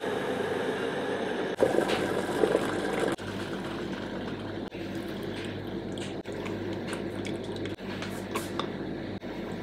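Liquid pouring into a paper drip-coffee bag on a mug for about three seconds, then quieter drips and small clicks as the coffee drains through the bag.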